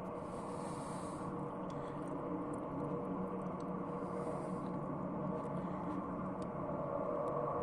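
Steady low roar of a power station heard from a distance, with a faint steady hum tone running through it; two brief faint high hisses come near the start and about four seconds in.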